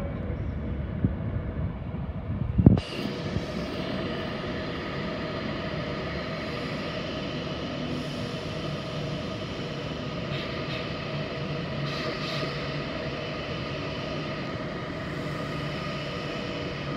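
Avanti West Coast Class 390 Pendolino electric train rolling slowly along the platform with a low rumble, then a sudden thump about three seconds in. After it, a steady hum with several held tones as the train stands.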